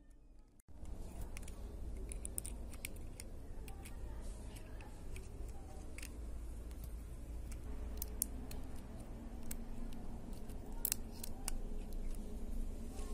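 Small sharp clicks and taps from tools and fingers handling the exposed parts of a disassembled Sony compact digital camera, starting about half a second in, over a steady low background rumble.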